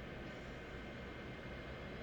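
Steady background hiss with a low hum underneath and a faint thin high tone: room tone and recording noise, no distinct event.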